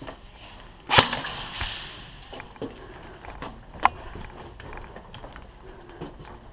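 Airsoft gunfire: a loud sharp crack about a second in and another near four seconds, among scattered fainter clicks.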